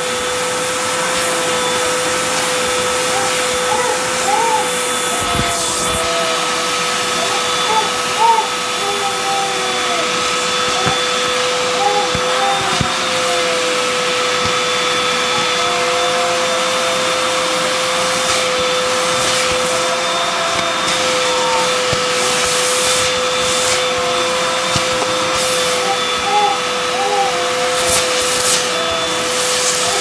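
Hoover vacuum cleaner running steadily with a constant motor whine, cleaning up a test mess on a carpet through its hose and wand, with a few brief clicks and rattles of debris.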